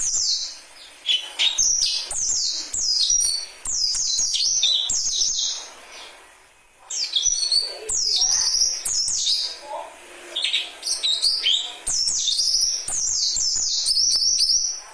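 Young white-breasted waterhen chicks calling: runs of rapid, high-pitched chirps, each falling in pitch, with a short lull about halfway through.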